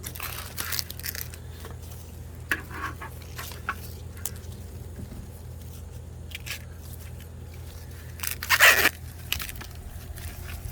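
Corn husks being torn and peeled back from ears of sweet corn, with scattered rustling and crackling. There is a louder ripping tear about eight and a half seconds in.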